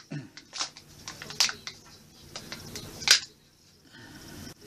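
Sharp plastic clicks and rustling from a Kinder Joy's plastic egg capsule and wrapper being handled and pulled open. A few separate clicks, the loudest about three seconds in.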